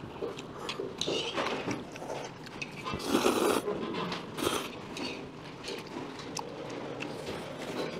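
Thin ganjjajang (black-bean-sauce) noodles being slurped in a few noisy pulls, about a second in and louder around three seconds in. Light clicks of chopsticks against bowls and plates run between them.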